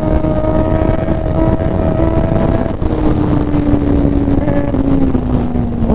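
Motorcycle engine running steadily while riding, its note sinking slowly as the revs ease off, over a constant rush of wind noise.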